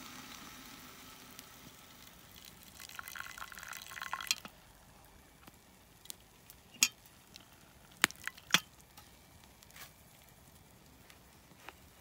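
Hot stock poured from an enamel kettle into a cast-iron pot, with a burst of splashing about three to four seconds in. A few sharp ticks follow a few seconds later.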